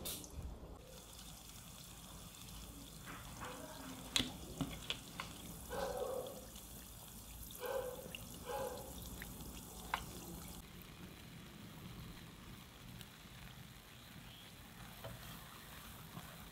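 Oil sizzling and bubbling steadily as potato dough balls shallow-fry in a pan. A few sharp light clicks and taps stand out, the loudest about four seconds in and another near ten seconds.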